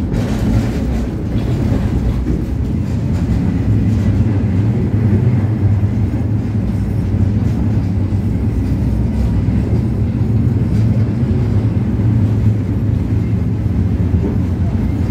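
Tatra T4R tram running along the track, heard from inside the car: a steady low rumble of wheels on rails and running gear.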